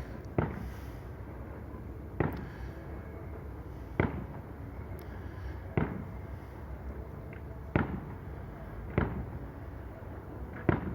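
Distant firework shells bursting: about seven single bangs, one every second or two, over a steady low background hum.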